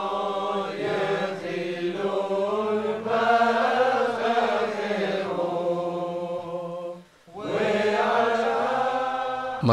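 A group of voices chanting a Hebrew piyut together in held, gliding phrases. The singing stops briefly about seven seconds in, then starts again.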